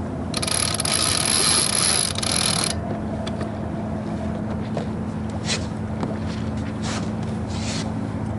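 Sailboat under way: a steady rush of wind and water with a low hum beneath, a loud hiss for about two seconds near the start, and a few faint knocks later on.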